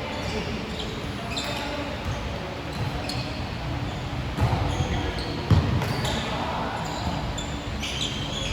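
Basketball game on an indoor court: the ball bouncing in low thumps, the loudest about halfway through, and brief sneaker squeaks over background voices of players and onlookers in a large hall.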